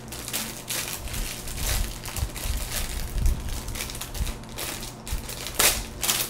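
Small plastic accessory bag crinkling and crackling in the hands as it is worked open, with irregular crackles, a sharper crackle near the end, and low handling bumps.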